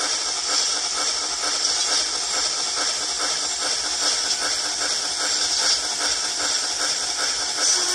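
YouChoos sound decoder in a Hornby Royal Scot model locomotive, playing a steam engine's running sound through its small speaker: a steady, even run of hissing exhaust chuffs.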